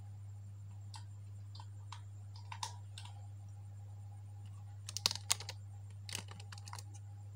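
Scattered small clicks and taps of hands handling test leads and clips on an amplifier board, a few singly and then two quick clusters, over a steady low hum.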